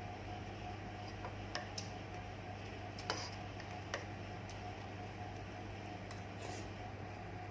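Eating sounds: scattered, irregular small clicks and smacks from chewing and utensils, the sharpest about three seconds in, over a steady low hum.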